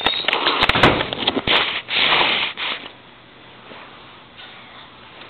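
Camera handling noise: a flurry of knocks, clicks and rustling as the camera is picked up and moved, with one longer rush of noise about two seconds in. After that it settles to a low room hiss.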